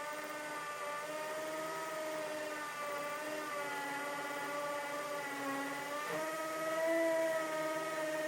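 Two cordless hammer drills, a Ryobi P213 and a Craftsman CMCD711, running with 3/16-inch masonry bits boring into a concrete paver. The motor whine wavers and dips in pitch as the bits load up, and gets a little louder near the end.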